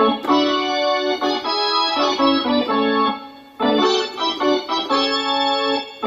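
Roland D-50 synthesizer playing sustained chords on an organ patch, with its effects switched on. The chords break off briefly about three seconds in, then resume.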